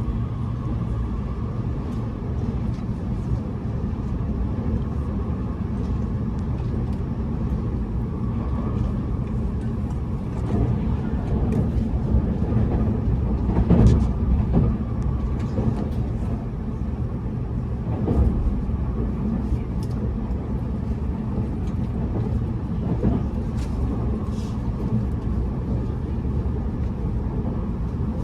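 Cabin running noise of a Tobu N100 Spacia X electric limited express train at speed: a steady low rumble of wheels on rail, with a few brief louder knocks, the loudest about halfway through.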